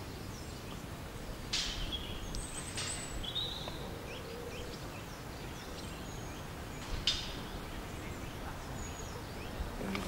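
Outdoor ambience with a low background rumble, a few short, high bird chirps and whistles, and two brief rustles about one and a half and seven seconds in.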